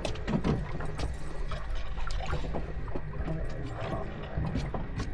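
Boat engine running steadily at idle with a low hum, while water splashes and laps against the hull in short irregular slaps.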